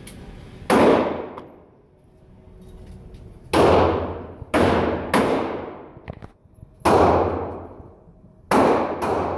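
Seven gunshots at irregular spacing, some close together in pairs, each a sharp crack followed by a long echoing decay.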